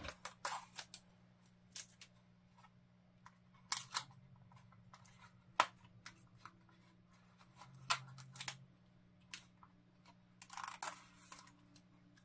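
Light plastic clicks and rustles of a small folded DJI Mini SE drone being lifted out of its packaging and handled, in scattered single clicks with a longer rustle near the end. A faint steady low hum runs underneath.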